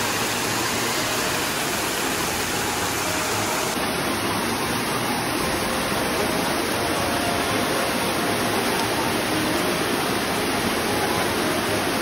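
Water rushing steadily down a rocky waterfall cascade.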